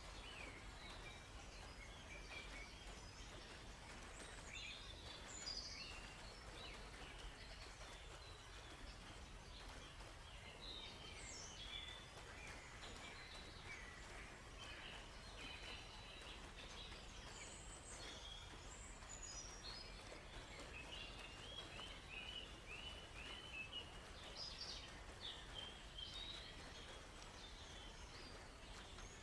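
Several small songbirds chirping and singing over a faint, even background hiss, with short calls coming throughout. Late on, one bird gives a quick run of repeated notes.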